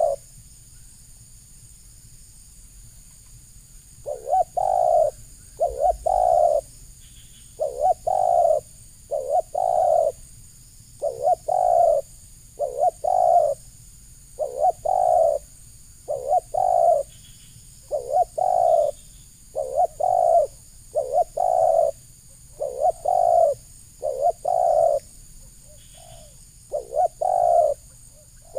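Spotted dove cooing: a long run of short, low coos, mostly in pairs about a second apart, starting about four seconds in after a brief pause.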